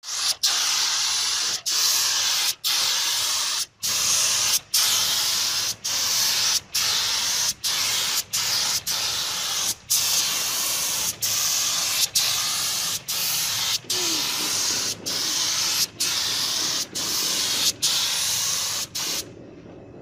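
Gravity-feed air spray gun spraying paint: a loud steady hiss of compressed air and atomised paint, broken by short breaks about once a second, stopping near the end.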